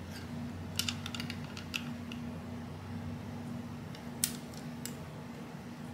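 Light metallic clicks of a Ruger Mark III pistol's parts being handled and fitted during reassembly: a quick cluster of small clicks about a second in, then two single clicks about four to five seconds in.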